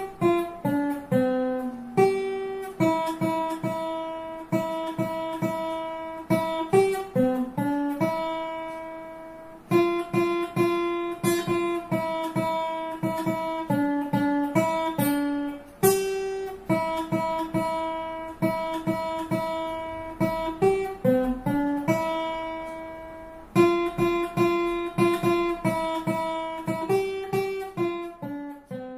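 Acoustic guitar played solo: a picked melody in short phrases, each note ringing on, with a few longer held notes between phrases.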